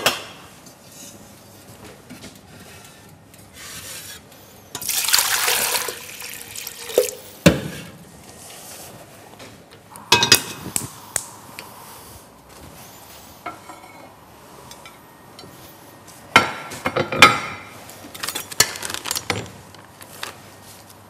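Water running briefly into a steel cooking pot, then metal clanks and clatter as the pot is set down on a gas hob grate and handled, with several sharp knocks.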